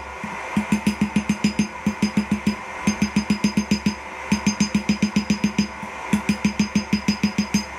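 Hand hammer forging a hot 3/8-inch round steel bar on an anvil, in quick runs of blows about six a second with short pauses between the runs, each blow leaving a metallic ring from the anvil.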